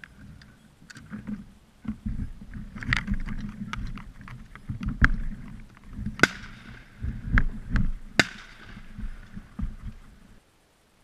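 Wind buffeting the microphone in uneven low rumbles, with scattered sharp clicks and two louder cracks with a short ring after them, about six and eight seconds in. The sound cuts off suddenly near the end.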